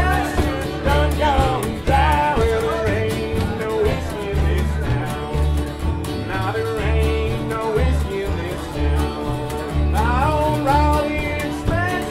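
Bluegrass string band playing live: a fiddle carries sliding melody lines over strummed acoustic guitar and a plucked upright bass keeping a steady beat.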